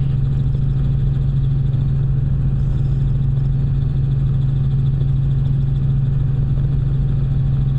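Helicopter in flight, climbing: the rotor and engine drone heard from inside the cabin, a steady low hum at an even level.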